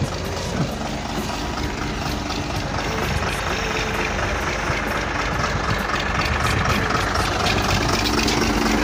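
Engine of a heavy earthmoving machine running steadily and getting louder toward the end.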